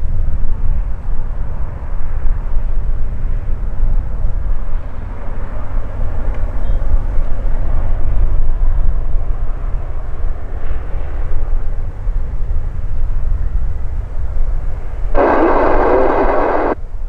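Single-engine Cessna F172N Skyhawk II's four-cylinder piston engine droning faintly overhead, under a heavy, rising and falling low rumble of wind buffeting the microphone. Near the end a louder sound with evenly spaced tones starts and stops abruptly, lasting about a second and a half.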